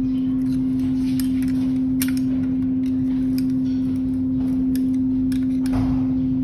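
A steady hum at one pitch runs throughout. Over it come a few light clicks and taps of a screwdriver and stainless steel holder parts being handled and screwed together.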